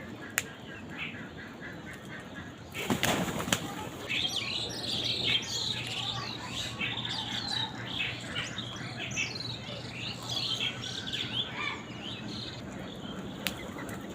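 A brief burst of wing flapping about three seconds in, followed by a flock of birds calling in a dense chorus of short, quick chirps that thins out after several seconds.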